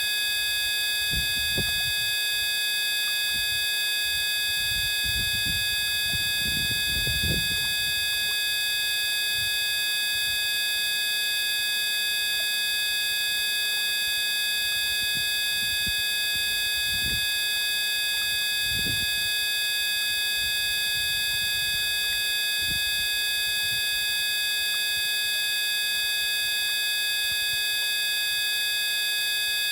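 Steady electronic buzz made of several high held tones that do not change, with a few brief low rumbles about a second in, around six to seven seconds in, and twice near the middle.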